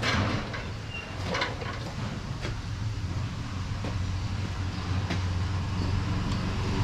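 Motorcycle engine running steadily, with a few light clicks over it.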